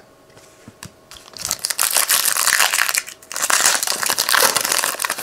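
Foil wrapper of a 2014 Panini Prizm Draft Picks trading-card pack crinkling and tearing as it is opened by hand, in two spells of about a second and a half each, starting about a second and a half in.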